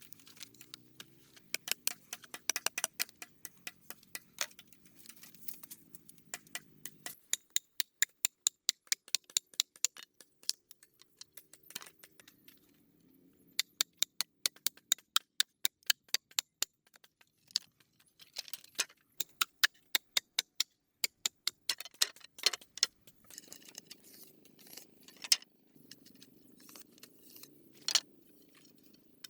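A long series of sharp clicks and taps, coming in regular runs of about three to four a second, broken by short pauses.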